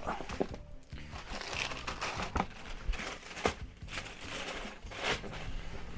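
Shoebox tissue paper crinkling and rustling as a sneaker is dug out of its box, with scattered sharper crackles.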